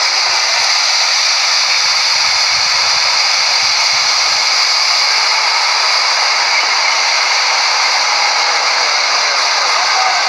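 River in flood rushing past: a loud, steady, even hiss with no let-up.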